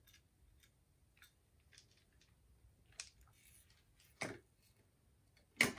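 Faint, irregular clicks and ticks of a precision screwdriver turning small screws into the plastic casing of a caravan motor mover remote. This is followed by two louder plastic knocks, about four and five and a half seconds in, as the remote and screwdriver are handled.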